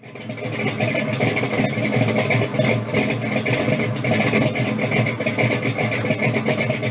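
A car engine running steadily at a loud, rumbling idle, cutting in suddenly at the start.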